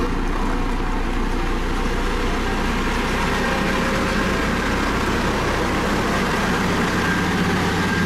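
Dynapac CC522 tandem-drum asphalt roller's diesel engine running steadily with a deep low rumble as the roller compacts fresh asphalt.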